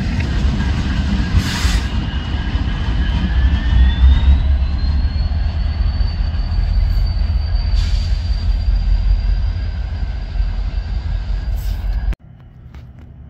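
Train running past on the tracks with a heavy low rumble and a thin, high, steady wheel squeal that rises in pitch a few seconds in and then holds. The sound cuts off abruptly near the end.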